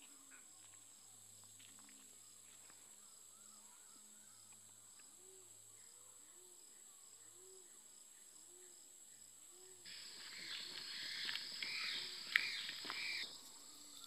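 Rainforest insects droning steadily in a high, thin whine. About ten seconds in, a loud, harsh hissing sound cuts in for about three seconds and stops abruptly.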